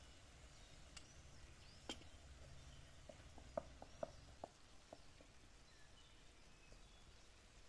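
Faint outdoor quiet with a wooden spatula knocking and scraping lightly against a metal pan as food is stirred, a quick run of about half a dozen light knocks about halfway through. Small birds chirp faintly in the background.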